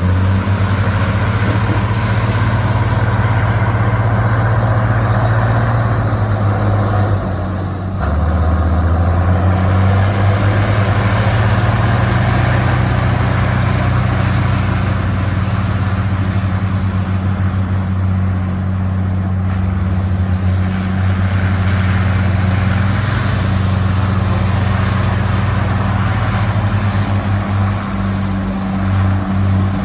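Komatsu crawler bulldozer's diesel engine running loud and steady as the machine works, its pitch stepping up and down with the load, with a brief drop about eight seconds in.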